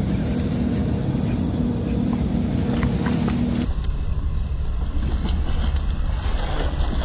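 An engine running steadily with a low hum and rumble. About halfway in, the sound turns abruptly duller and loses its hiss.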